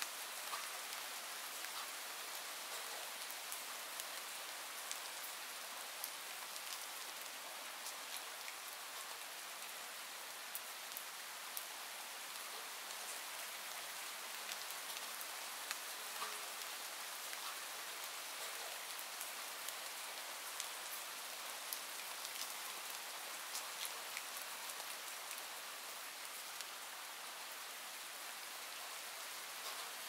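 Steady rain, with many single drops ticking through it.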